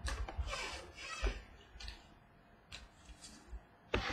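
Trading cards being handled at a table, sorted and set down onto a stack: a series of quick papery swishes and light taps.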